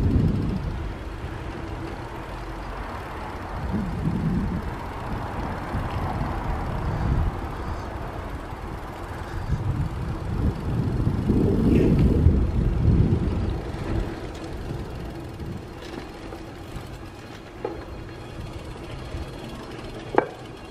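Outdoor town-street ambience: a low rumble that swells and fades several times, loudest at the start and again about two thirds of the way through, with a single sharp click near the end.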